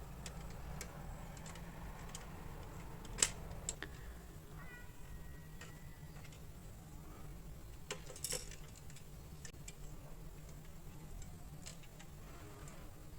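A few sharp clicks of small plastic building bricks being handled, the loudest about three seconds in and another pair about eight seconds in, over a steady low hum. Around the middle, a thin high tone is held for about a second and a half.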